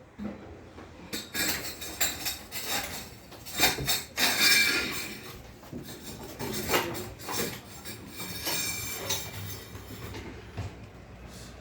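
Metal parts of a core drill rig clattering and scraping, with irregular knocks and brief squealing, loudest about four seconds in.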